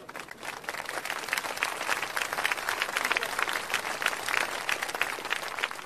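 Crowd applause: many hands clapping densely together, building quickly at the start and holding steady.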